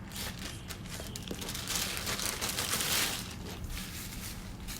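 Rustling handling noise that swells in the middle and then eases, with a few light clicks.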